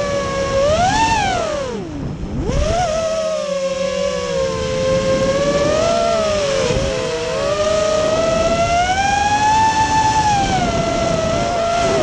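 FPV racing quadcopter's brushless motors whining, the pitch rising and falling with the throttle. About two seconds in the pitch drops steeply as the throttle is cut, then climbs back as power returns. Around the middle the tones briefly split and cross as the motors run at different speeds while the drone banks.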